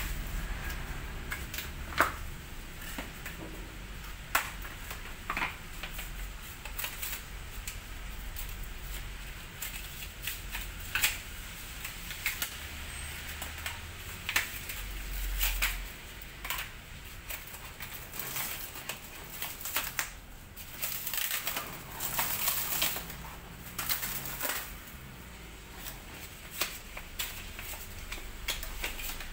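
Scissors snipping and foam tube protectors and plastic wrap rustling and crinkling as packing is cut and pulled off a bicycle frame, with scattered sharp clicks and snaps. The rustling is heaviest near the end.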